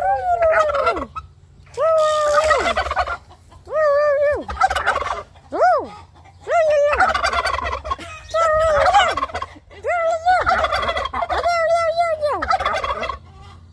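Domestic tom turkeys gobbling over and over, one loud gobble about every couple of seconds, while they strut in display.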